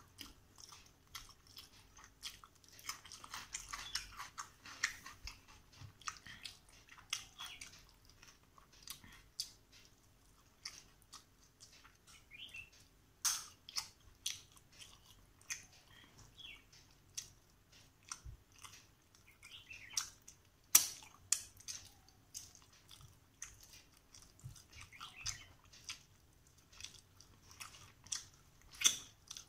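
Chewing and mouth smacks of rice and carp curry being eaten by hand, with scattered sharp clicks, alongside fingers gathering rice on a steel plate.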